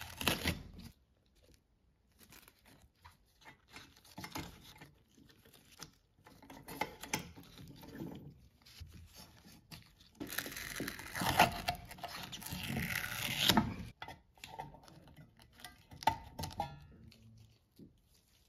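Gloved hands working on a metal lamp base as it is taken apart: rustling, light knocks and clicks from handling the base, wires and small parts. The loudest part is a stretch of continuous rubbing and scraping from about ten to thirteen and a half seconds in.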